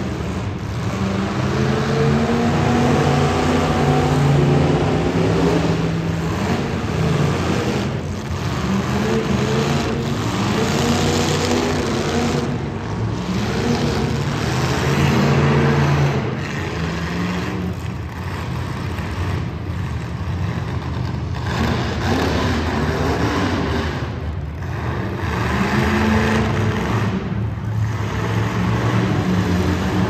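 Demolition derby cars' engines revving hard, the pitch rising and falling again and again.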